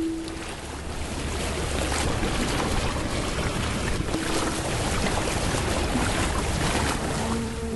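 A steady, unbroken rushing noise with no clear pitch.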